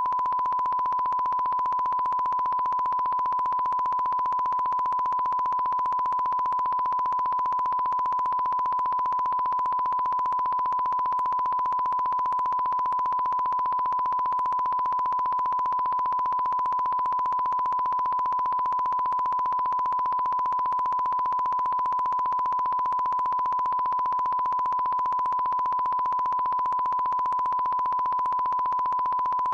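A steady, high-pitched broadcast test tone: one unbroken pure beep that replaces the programme audio, the sign of a sound fault in the transmission.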